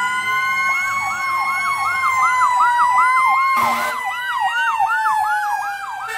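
Fire truck sirens: a mechanical Q siren wailing with a steady tone that slowly coasts down in pitch, and an electronic siren yelping over it about three times a second from about a second in. A short burst of hiss comes a little past halfway.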